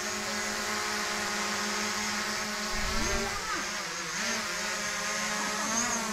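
Small quadcopter drone hovering close overhead: the propellers and motors make a steady, even whine made of several pitches at once over a hiss.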